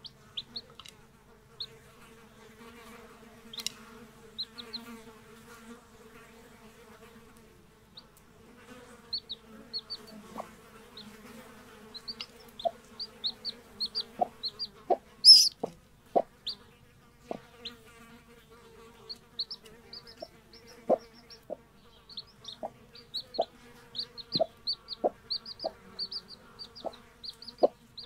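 Two-day-old chicks peeping in many short, high cheeps over a steady low hum, with frequent sharp taps. One cheep about fifteen seconds in is much louder than the rest.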